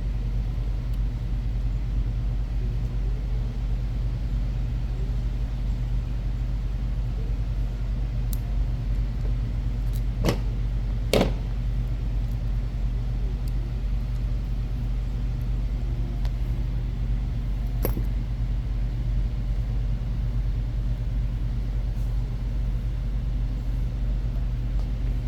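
Steady low electrical hum, with a few sharp clicks of small tools and parts being handled on a workbench: two close together about ten and eleven seconds in, and one near eighteen seconds.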